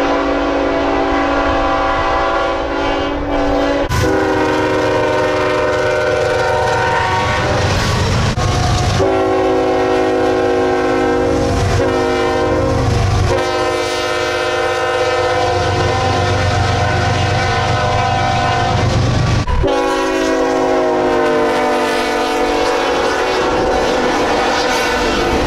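Nathan Airchime K5HL five-chime locomotive air horns sounding long chords in several short clips cut back to back. In some clips the chord slides down in pitch as the locomotive passes, over the low rumble of the train.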